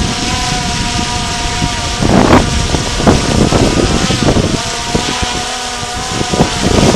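Small drone's propellers whining steadily, several tones that waver slightly in pitch, with gusty wind buffeting on the microphone.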